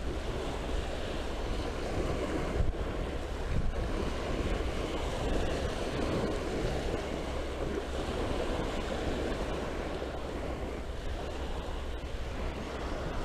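Small waves washing onto a sandy shore, with wind buffeting the microphone. Two brief knocks about three seconds in.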